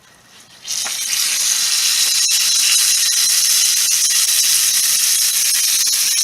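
Cheeseburger patty sizzling in a hot mess kit frying pan over a campfire: a loud, steady hiss with many small crackling pops that starts suddenly less than a second in, as the patty goes back into the pan.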